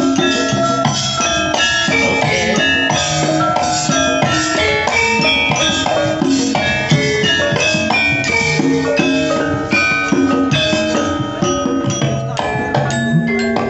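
Javanese gamelan playing an instrumental passage in pelog tuning: bronze metallophones and gongs ringing in dense interlocking notes over steady hand-drum strokes.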